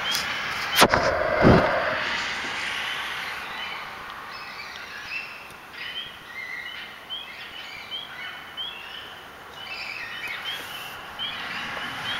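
Short, high chirping calls rising in pitch, repeated irregularly from an unidentified animal, over a steady outdoor noise haze. Two loud knocks come about a second in.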